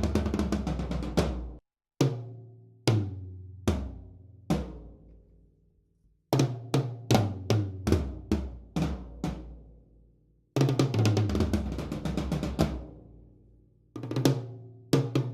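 Acoustic drum kit played in short phrases with the toms featured. Runs of quick strokes alternate with single hits about a second apart, each left to ring down. The kit is being demonstrated with dampening rings on the toms.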